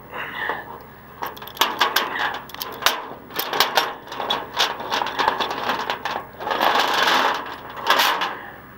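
Irregular metallic clinks, knocks and rattles, as of chain and hooks being handled and rehooked for a winch pull, with scraping in between.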